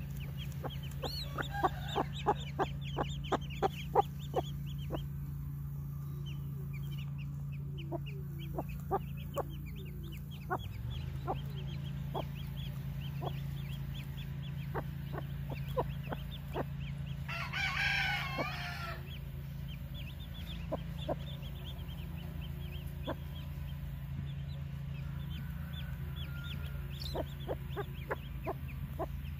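Hmong hen clucking in short sharp notes while her gray chicks peep over and over in high chirps; the clucks come thickest in the first few seconds. About two-thirds of the way through, a rooster crows once, briefly, over a steady low hum.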